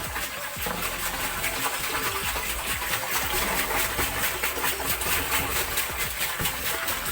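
Small engine-driven water pump running steadily, with water gushing into a tank as it fills.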